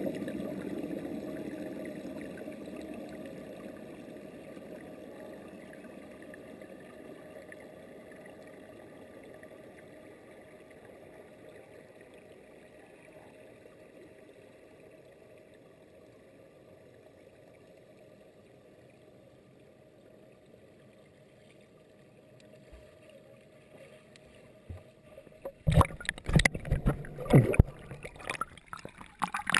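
Muffled rushing and gurgling of a pool's bubble jets heard through an underwater camera, fading slowly to a faint hiss over about twenty seconds. About four seconds before the end, loud irregular knocks and bumps close to the microphone break in.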